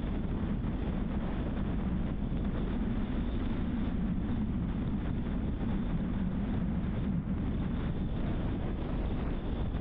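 A car driving along a road: a steady low rumble of tyre and road noise mixed with wind on the microphone.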